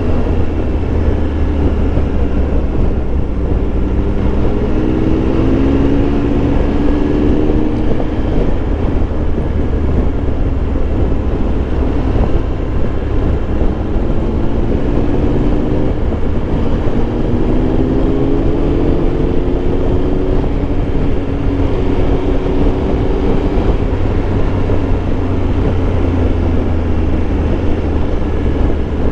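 Triumph Tiger Explorer 1200's three-cylinder engine running at road speed under a steady rush of wind noise, with a constant low rumble. Its pitch climbs a few times as the bike accelerates.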